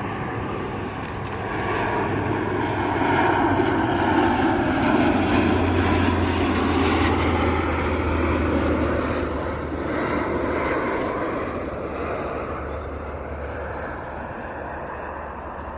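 Jet airliner engines on a landing aircraft: a steady roar that swells to its loudest about midway, then slowly fades as the plane passes.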